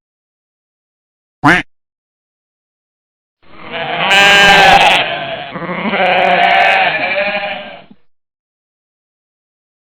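A sheep bleating twice: two long, wavering bleats with a short dip between them, after a brief blip of sound about a second and a half in.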